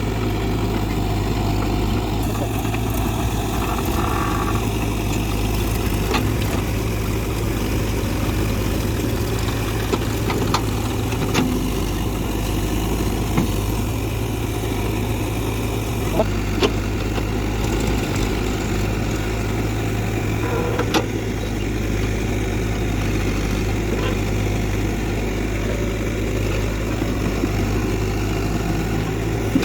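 Diesel engine of heavy machinery (backhoe loader or tractor) running steadily, with a few short knocks over it.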